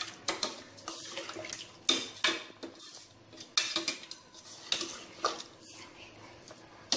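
Metal ladle stirring a watery mutton curry in a stainless steel pot, scraping and knocking against the pot's sides in irregular strokes.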